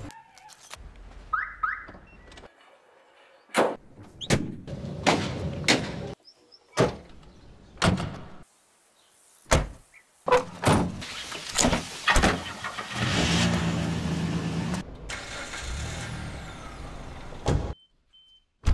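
A rapid series of car-door slams and other car sounds, cut hard one after another, followed by a car engine running steadily for several seconds before cutting off suddenly.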